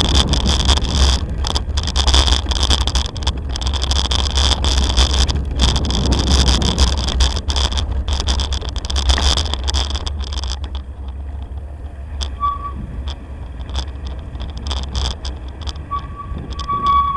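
Bicycle riding over cobblestones, with wind rumble on the microphone and many sharp rattling clicks of the bike and camera mount over the stones. It goes quieter about ten seconds in, and a short high tone sounds twice, the second one longer, near the end.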